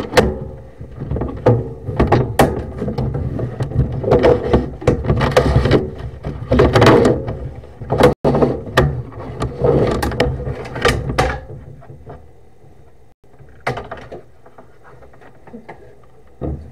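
Sewer inspection camera's push cable being pulled back out of a sewer line, with a run of knocks, clunks and rumbling handling noise that dies down to a few faint knocks after about twelve seconds.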